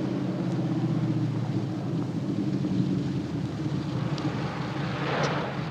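Vehicle engine running with a steady low drone. Near the end the drone eases and a hiss rises.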